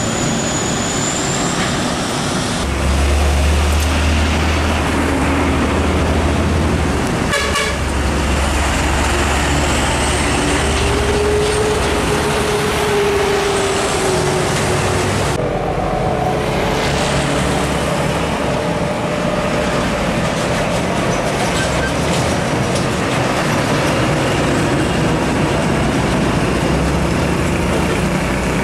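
Heavy diesel trucks driving past on a busy road, a deep engine rumble over steady traffic noise.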